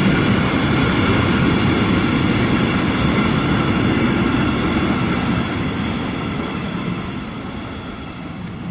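Container freight train rolling past at speed: a steady rumble of wheels on rail with a whine over it, fading away from about six seconds in as the last wagons pull off.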